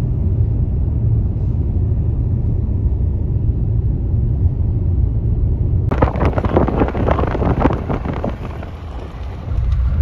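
Road noise inside a moving car, a steady low rumble. About six seconds in it cuts to a loud outdoor rushing hiss with flickering gusts, and the low car rumble comes back near the end.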